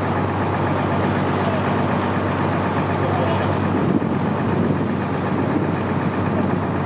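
Motorboat engine running at a steady drone, with wind and water noise over it.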